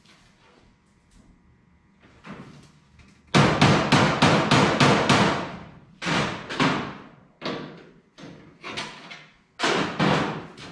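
Hammer striking the race car's body panels: a few soft taps, then a quick run of about seven sharp blows, followed by scattered pairs and single strikes that ring briefly.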